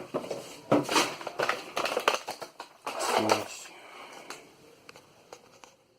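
An action camera's retail box and packaging being handled and opened by hand: scattered clicks and crackles that tail off near the end.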